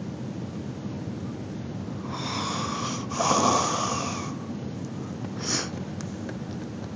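Small child snoring in sleep: one long, wheezy snoring breath about two seconds in, followed by a shorter breath a couple of seconds later, over a steady background hiss.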